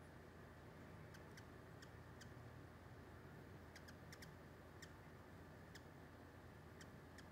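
Near silence with faint, very short, high-pitched chip notes, single or in quick groups of two or three, most of them around four seconds in: hummingbird chip calls.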